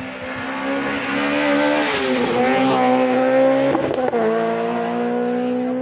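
Rally car engine running hard on a special stage, passing by: its pitch dips briefly twice, about two and four seconds in, and it grows louder towards the middle, then eases off near the end.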